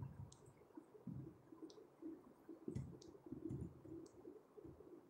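Faint strokes and taps of a marker writing on a whiteboard, with a few brief high squeaks of the tip.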